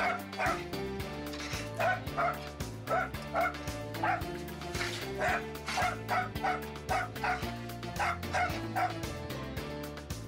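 Small dog yapping in a rapid run of short barks, about two a second, over background music.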